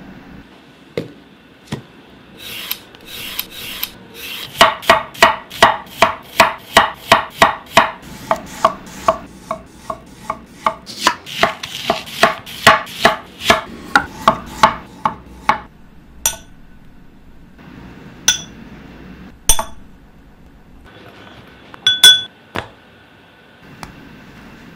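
Chef's knife slicing an onion into rings on a wooden cutting board: a long run of crisp, even cuts, about three a second, each blade stroke ending in a knock on the board. After that come a few separate sharp taps and clicks.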